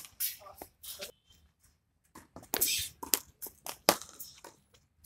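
Cricket ball knocking practice: a string of sharp, unevenly spaced knocks as the bat strikes the ball and the ball bounces on the concrete and rebounds off the brick wall.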